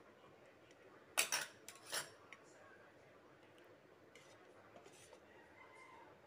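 Steel spoon clinking against a stainless-steel bowl: a quick cluster of sharp clinks about a second in, then a few faint taps.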